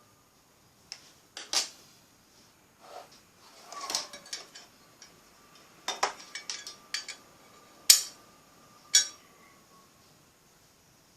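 Irregular sharp clinks and knocks of small hard objects being handled, about a dozen in all, with a small cluster around 4 seconds in, another around 6 to 7 seconds, and the loudest clink about 8 seconds in.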